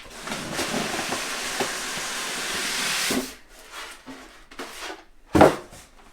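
Packaging being handled: a steady hissing rustle for about three seconds that stops abruptly, then one loud knock about five seconds in, as of something set down hard.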